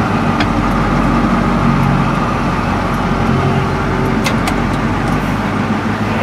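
A 1987 Ford C-Series garbage truck's engine running steadily as the truck moves slowly, heard from inside the cab, with a few light clicks.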